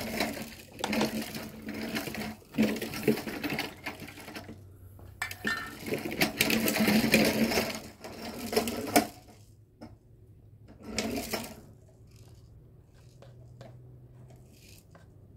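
Paint being stirred with a stick and metal paint tins handled: rapid scraping and clinking in bursts, stopping about nine seconds in, with one more short burst near eleven seconds.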